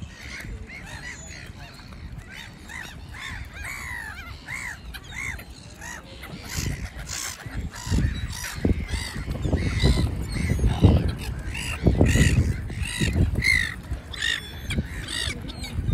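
A flock of black-headed gulls calling, with many short harsh cries, sparse at first and then thick and rapid from about six seconds in. Low rumbling underneath is loudest in the middle of the stretch.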